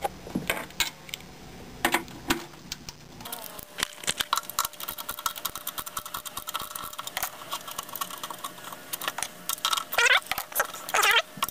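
Flathead screwdriver turning and scraping in a slotted screw on the underside of an IBM 5251 keyboard: a long run of small metallic clicks and scrapes as the screw is worked loose.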